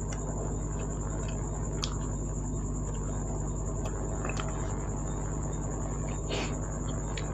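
A steady high-pitched insect trill, like crickets, over a low hum, with a few short wet clicks and smacks of eating.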